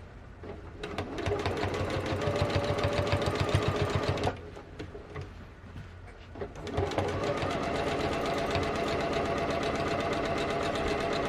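Janome sewing machine stitching in free-motion quilting, in two runs of rapid needle strokes: one for about three and a half seconds, a pause of about two seconds, then a second steady run to the end.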